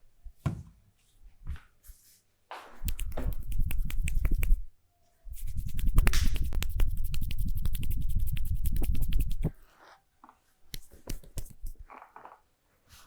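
Hands beating rapid percussive massage strokes on a person's body, in two long runs with a short break between. A few single slaps and clicks come before and after.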